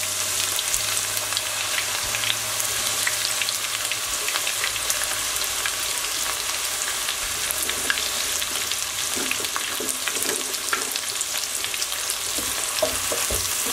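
Freshly added diced onions sizzling in hot oil in a nonstick frying pan: a steady hiss with a constant scatter of small crackles, the first stage of frying the onions golden.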